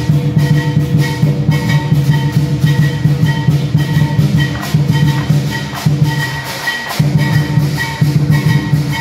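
Lion dance percussion: a big drum pounding a steady, fast beat with clashing cymbals and gong ringing over it. The drum drops out for about a second near the end, then comes back in.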